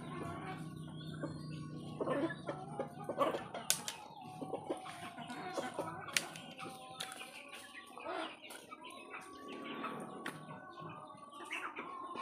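Domestic chickens clucking, with scattered sharp clicks and rustles.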